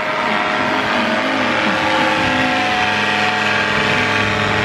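Engine of a powered paraglider (paramotor) running overhead: a loud, steady drone with an unchanging pitch.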